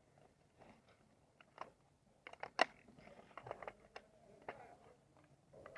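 Faint, scattered airsoft gunshots and BB impacts: irregular sharp clicks and cracks, with a quick string of several shots about two and a half seconds in.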